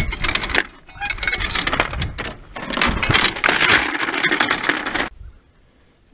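Anchor chain rattling and clinking against an alloy boat as the anchor is let go; it stops suddenly about five seconds in.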